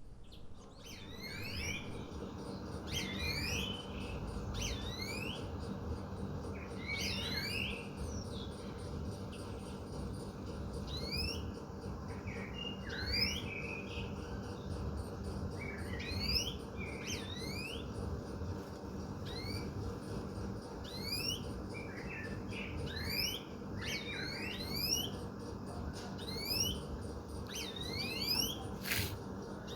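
Birds chirping over and over in short, quickly rising calls, above a steady low hum of city background noise. A sharp click comes near the end.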